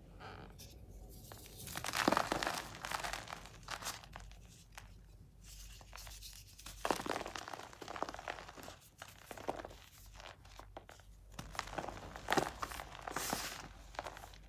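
Bare hands crushing and crumbling powdery chalk bars: irregular dry crunches and crackles as the blocks break and squeeze into loose powder. The crunching is loudest about two seconds in and again near the end.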